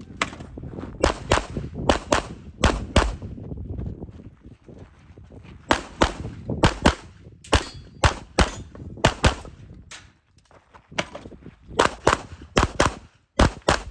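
Tanfoglio pistol fired rapidly in quick pairs of shots, with short pauses between the pairs and one longer pause past the middle.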